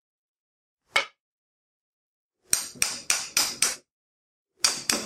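Hammer blows on a motorcycle front brake caliper, driving out its pins: a single strike about a second in, a quick run of about five strikes, then three more near the end.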